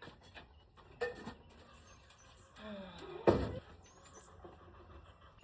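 A dairy goat gives a short bleat that falls in pitch, then a sharp, loud knock with a brief ring about three seconds in; a smaller click comes about a second in.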